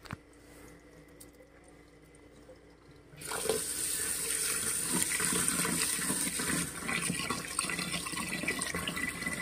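Kitchen tap turned on about three seconds in, its stream of water pouring steadily into a metal pot of raw long-grain rice as a hand stirs the grains to wash them.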